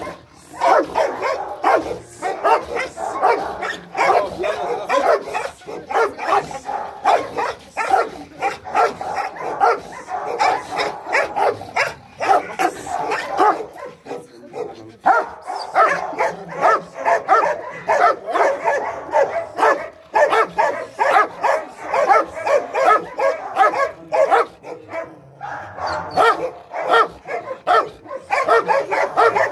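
A young male crossbred guard dog barking rapidly and without let-up, with brief breaks about halfway through and near the end.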